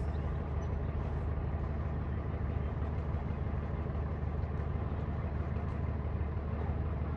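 A running vehicle's steady low rumble.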